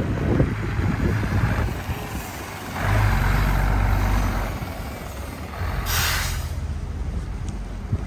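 A heavy road vehicle's engine rumbling by, loudest a few seconds in, with a short sharp burst of hiss about six seconds in. Wind buffets the microphone at the start.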